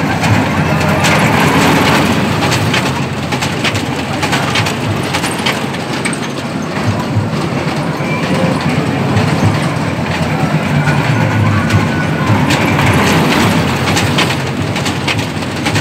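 Miniature ride train running around its circular track: a steady motor drone with clicking and clattering of the wheels on the rails, passing close at the start and again near the end.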